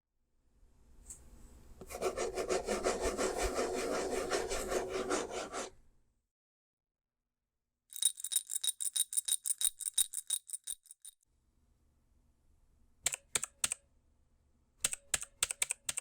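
Fingernails scratching rapidly against the side of a wooden dresser for about four seconds. After a pause, coins rattle in a small cup in quick clinks with a high metallic ring. Near the end, two short runs of keyboard typing clicks.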